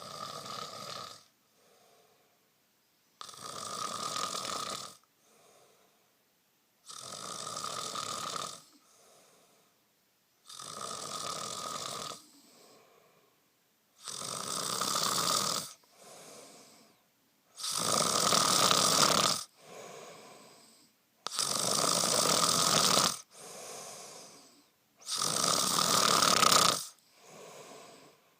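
A man snoring in his sleep: a loud snore about every three and a half seconds, eight in all, each followed by a shorter, quieter snore. The snores grow louder toward the end.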